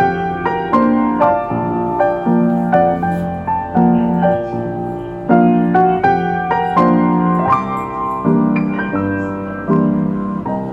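Background piano music: a gentle melody of struck notes that ring and fade over a steady chordal accompaniment.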